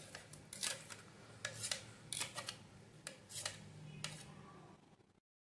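A metal spoon scraping thick mango purée out of a stainless-steel mixer jar: a series of short, irregular scrapes over a faint low hum, stopping suddenly near the end.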